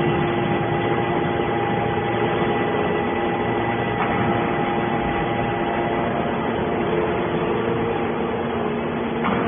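Hydraulic scrap metal baler running, its motor and pump giving a steady hum with a constant whine, with a faint knock about four seconds in.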